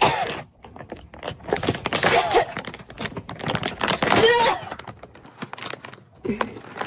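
A person's voice in four short bursts, with quick clicks and taps between them.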